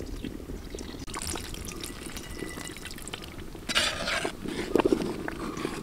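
Coconut milk trickling from a jug into a large metal pot of simmering rice dumplings, then a ladle stirring the thick mixture, with louder sloshes about four and five seconds in.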